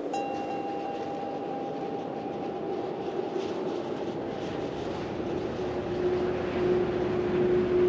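Ambient electronic drone soundtrack: a steady rumbling noise bed with a held high tone that enters just after a soft click and fades out, then a lower held tone coming in about six seconds in and swelling louder.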